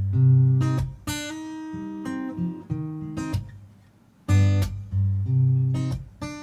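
Acoustic guitar intro: strong strummed chords, each left ringing, with single picked notes between them. The phrase repeats about four seconds in.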